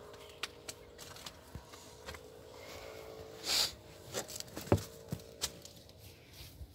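Footsteps and scuffing on dry leaves and stony ground: scattered clicks and crackles, one louder crunch about halfway through and a sharp knock a second later, over a faint steady hum.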